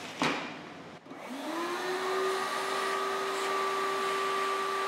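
Shop vacuum switched on: after a sharp click, the motor spins up about a second in with a rising whine and settles into a steady high drone.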